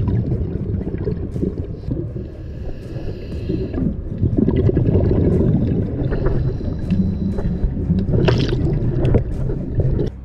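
Underwater sound of scuba breathing: a hiss from the regulator on two inhalations, each followed by a loud rush of exhaled bubbles, cutting off suddenly near the end.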